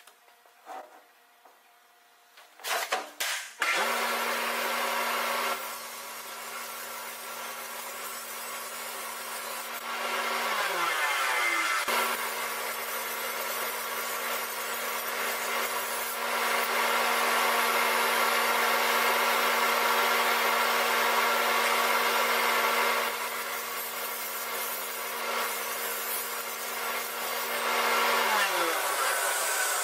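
Table saw starting up about four seconds in and cutting a plywood herringbone panel: a steady motor hum with louder stretches of blade noise through the wood. Twice the hum sinks in pitch and dies away as the blade slows.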